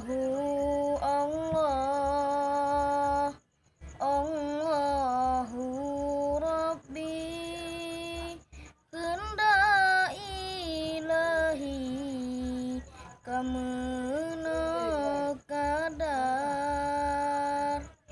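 A boy's solo voice chanting without accompaniment, melodious and ornamented: long held phrases whose pitch wavers and turns, broken by short pauses for breath.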